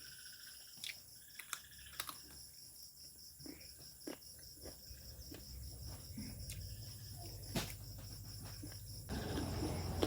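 Steady chirping of crickets, with scattered sharp clicks and smacks of close-up chewing and eating. A louder rough noise comes in near the end.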